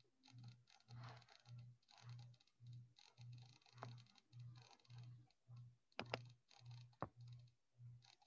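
Faint computer mouse clicks and soft keyboard clatter as a menu is worked on screen, with a few sharper clicks in the second half. Under them a low hum pulses about twice a second.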